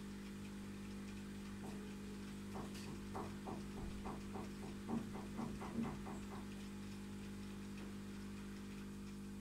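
Steady low hum of running aquarium equipment, with a run of small quick clicks, about four a second, from about two and a half seconds in until about six and a half seconds.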